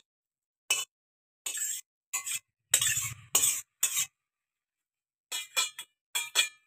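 A metal spatula scrapes and clinks against an aluminium wok and a steel bowl as cooked greens are scooped from the wok into the bowl. It comes as a series of short scrapes with quiet gaps between them, and a duller knock about three seconds in.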